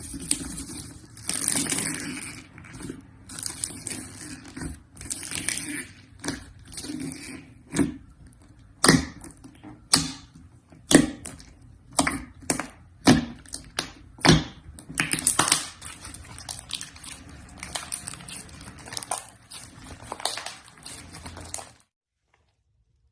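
Slime being squeezed and stretched by hand, with sticky crackling and squelching and a string of sharp pops through the middle; it stops shortly before the end.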